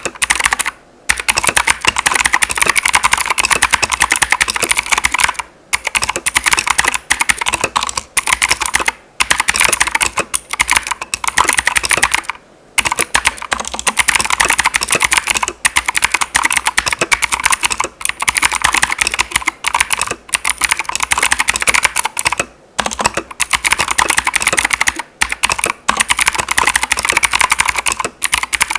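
Keychron K2 V2 mechanical keyboard with clicky blue switches being typed on quickly and steadily, a dense run of sharp key clicks broken by a few short pauses.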